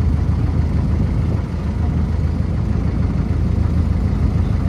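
A passenger boat's engine running steadily with a deep, even hum, over the rush of water foaming past the hull.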